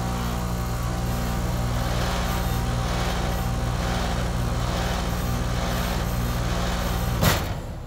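Bryant 3-ton air conditioner condenser unit running, its compressor and fan giving a steady loud mains-frequency hum. About seven seconds in, a sharp clack as the hand-held contactor is let go, and the unit cuts out and winds down.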